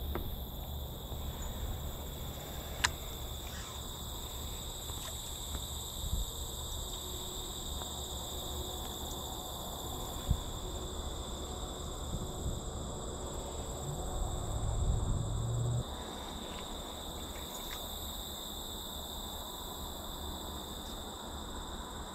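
Steady chorus of crickets and other insects, a continuous high-pitched trilling, over a low rumble on the microphone. Two sharp clicks come about three and ten seconds in, and a louder low rumble about two-thirds through cuts off suddenly.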